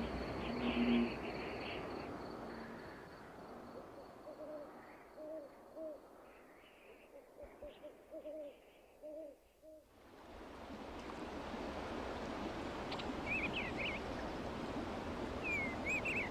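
Owl hooting at dusk: low hoots at the start, then softer short hooting notes that fade almost to silence about ten seconds in. Then a steady rush of running water swells up, with a few short bird chirps near the end.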